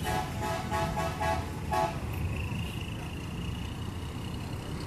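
Telolet melody horn of a PO Haryanto bus sounding a quick run of about five short notes in the first two seconds, over the steady rumble of the bus engine and traffic.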